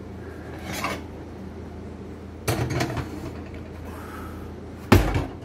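Cast-iron skillet and oven door being handled: a clunk with a short rattle about two and a half seconds in, then a louder, deeper thump near the end as the oven door is shut.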